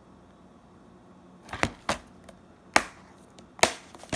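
Plastic DVD case being shut and handled: a short run of sharp plastic clicks and snaps, about five of them, starting about a second and a half in.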